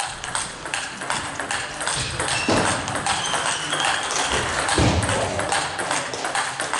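Table tennis balls clicking irregularly off bats and tables, several tables going at once in a large hall, with a couple of low thuds in the middle.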